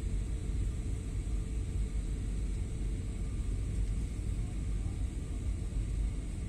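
Jet airliner cabin noise heard from a window seat during the descent: a steady deep rumble of engines and airflow, with a faint steady high whine.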